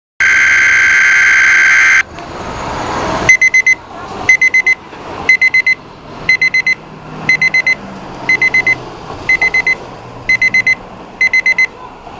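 Weather alert radio receiver sounding its alarm, short high beeps in groups of about four repeating roughly once a second, set off by the required weekly test broadcast. It is preceded by a steady buzzy data tone of about two seconds and a rising swell of static.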